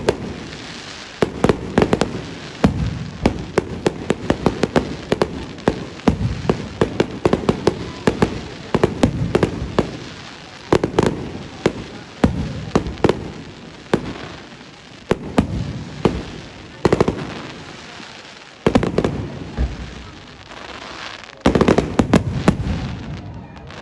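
Fireworks display: a rapid, continuous run of sharp bangs and crackles, several shell bursts a second, with denser clusters now and then, thinning out near the end.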